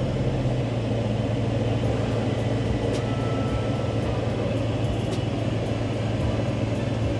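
Steady low hum of a Ford F250 pickup idling, heard from inside the cab, with a short one-second beep about three seconds in.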